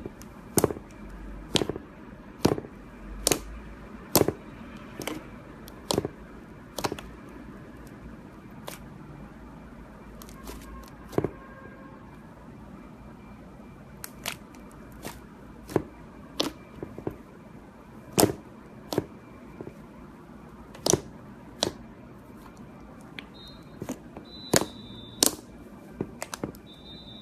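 Irregular sharp taps and clicks, sometimes in quick pairs and sometimes a second or two apart, over a steady low hiss. A few faint short high beeps come near the end.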